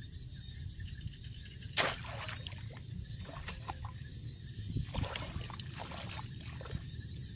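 Muddy shallow water sloshing and splashing as a bamboo plunge basket is pushed down into a flooded rice field, with a few sharp splashes, the loudest about two seconds in.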